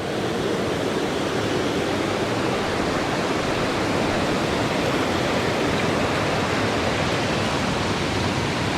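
Steady rush of water in a small, fast-flowing stream with waterfalls.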